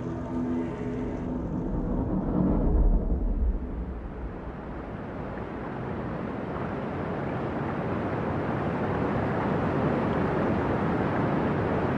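Music fades out in the first second or so, and a deep low rumble swells and drops about two to three seconds in. Then the steady rush of the Trevi Fountain's falling water rises and grows louder toward the end.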